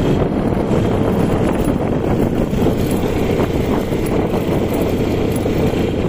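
Beker Cross 150cc single-cylinder dirt bike engine running steadily while riding a dirt track, mixed with wind rushing over the microphone.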